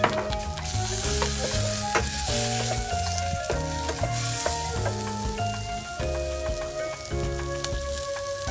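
Sliced eggplant and red onion sizzling in a stainless steel saucepan as they are stirred with a wooden spoon, with a sharp knock of the spoon right at the start and another about two seconds in. Background music plays throughout.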